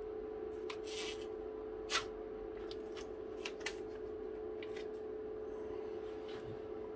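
Scattered light clicks and rustles of hands handling a new laptop's keyboard deck and lid, the sharpest about two seconds in, over a steady low hum.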